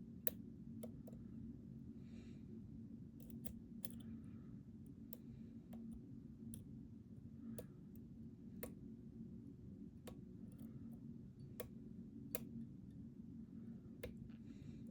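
Lock pick working the pins inside a Mul-T-Lock Interactive LFIC cylinder: irregular sharp clicks, roughly one a second and sometimes several in quick succession, with faint scraping, over a steady low hum.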